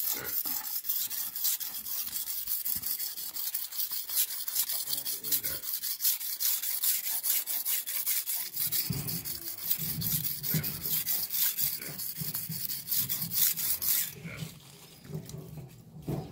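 Steel knife blade being stroked back and forth on a whetstone: a quick, steady run of rasping scrapes that stops about two seconds before the end.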